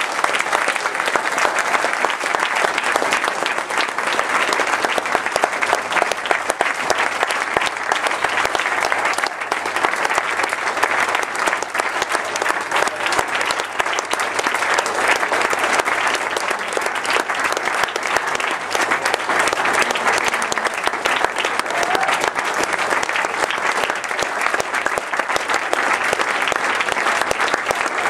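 Audience applauding, many people clapping steadily in a dense, even patter.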